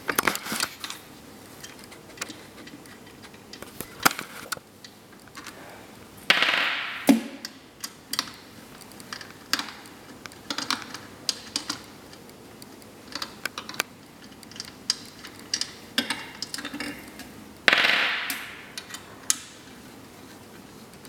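Screws being undone from the metal handle plate of a heat press with a screwdriver: scattered sharp clicks and ticks of tool and screws on metal, with two longer scraping sounds, about six seconds in and near the end, which are the loudest.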